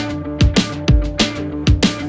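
Background music with a steady drum beat, deep drum hits about twice a second under held pitched tones.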